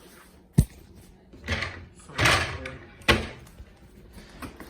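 Drawers or cupboards being opened and shut: a sharp knock, two sliding rattles, then another knock as they bang closed, like rummaging for a utensil.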